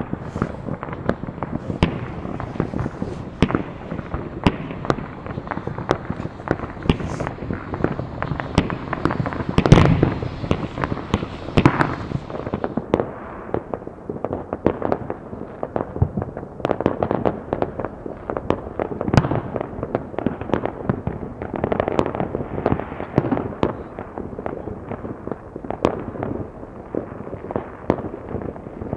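Many fireworks and firecrackers going off across a town at once: a dense, continuous crackle of bangs and pops, with a louder flurry of bangs about ten seconds in.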